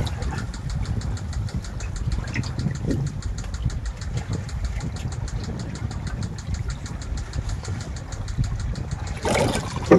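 Small boat engine idling with a low rumble and a fast, even ticking. Near the end, a loud splashing of water as the hooked fish is hauled up to the surface beside the boat.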